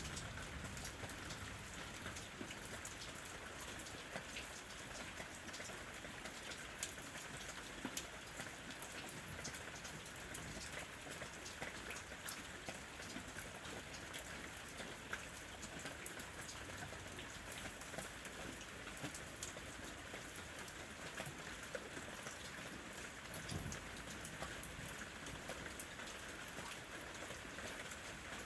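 Steady rain falling, with many individual drops ticking sharply on a hard surface over a constant patter.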